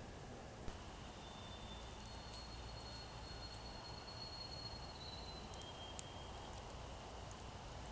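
Faint forest ambience through a trail camera's microphone: a steady hiss, with a thin, high, steady trill held for about three seconds and a shorter one after it. A sharp click comes near the start and another about six seconds in.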